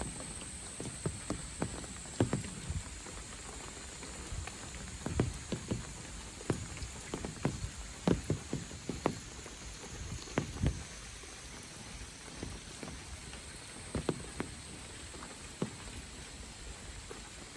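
Rain falling, with irregular close drops tapping sharply every half second or so. Insects keep up a steady high-pitched buzz that fades in the middle and returns near the end.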